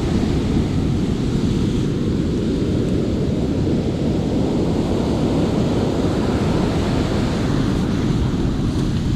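Steady wind rumbling on the microphone, mixed with the wash of surf on the beach.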